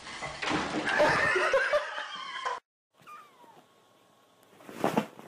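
A cat yowling with wavering cries for about two seconds, cut off abruptly. After a short gap comes a faint falling cry, then a single thump near the end.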